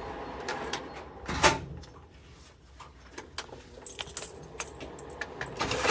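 Scattered light clicks and knocks, with one louder knock about a second and a half in and a brief patch of rattling clicks a little before the end.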